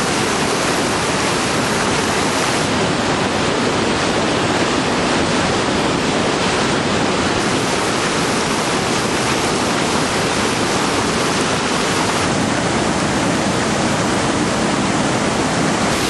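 Waterfall rushing, a loud steady roar of falling water.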